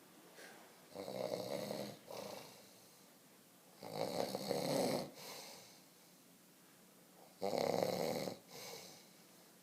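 A sleeping man snoring loudly: three long snores about three seconds apart, each followed by a shorter, softer one.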